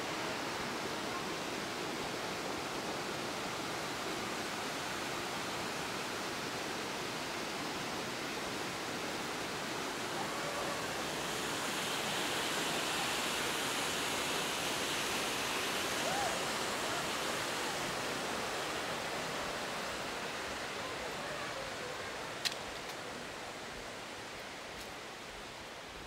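Steady rush of running water, swelling about halfway through and fading toward the end. A single sharp click comes near the end.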